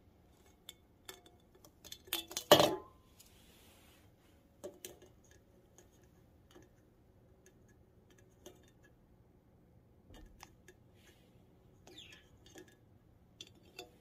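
Aluminium drink can clattering over onto a wooden table about two and a half seconds in, the loudest sound, followed by scattered light metallic taps and clicks as a conure pecks at and nudges the can.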